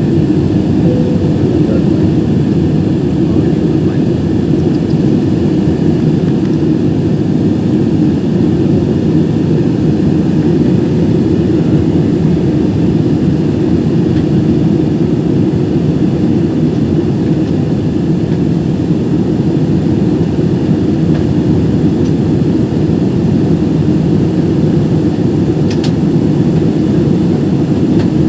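Steady jet airliner cabin noise, a dense low drone of the engines and airflow heard from inside the cabin, with a thin steady high whine over it.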